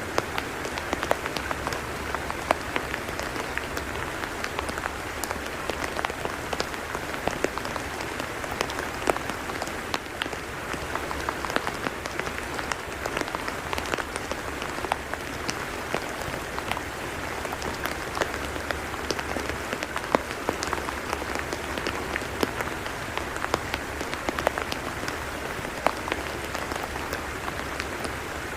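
Steady rain falling on a tidal mudflat: an even hiss dotted with many sharp, irregular drop ticks.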